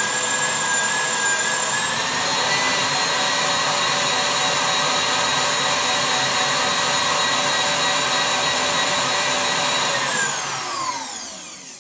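Stand mixer motor whining steadily at high speed as it beats a bavarois mixture; the whine rises slightly about two seconds in. Near the end it falls in pitch and fades as the mixer is switched off and spins down.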